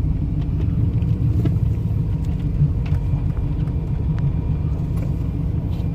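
Steady low rumble of a running vehicle, unchanging throughout.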